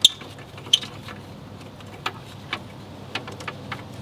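Hand wrench working a stubborn, rusty engine bolt: scattered sharp metallic clicks and ticks of the tool on the fastener, irregularly spaced, the loudest right at the start and another under a second in.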